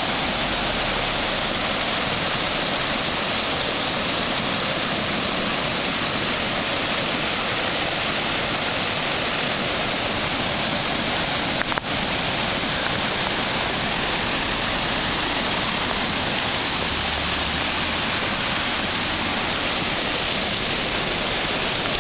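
Flood-swollen river pouring over a low concrete dam, a steady rushing roar of turbulent floodwater over the spillway.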